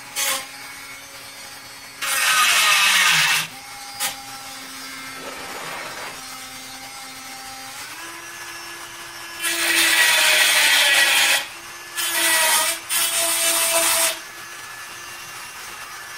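A Dremel rotary tool with a cut-off wheel grinds off the protruding tips of screws. There are four harsh high-pitched grinding bursts of one to two seconds each: one near the start and three close together later on. In between, the tool spins freely with a steady hum, which steps up in pitch about halfway through.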